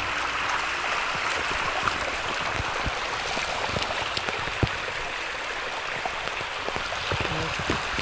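Kamuiwakka hot-spring stream rushing steadily over rocks, with a few short clicks and knocks here and there.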